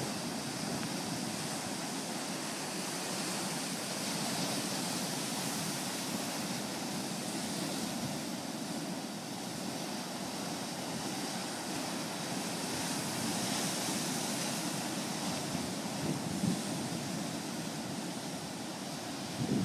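Ocean surf washing steadily, with wind buffeting the microphone in occasional gusts.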